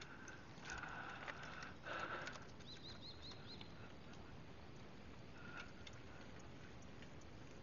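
Faint, labored breaths from a man hanging on a cross, a few short gasps in the first couple of seconds and one more later. A quick run of about five high bird chirps comes about three seconds in.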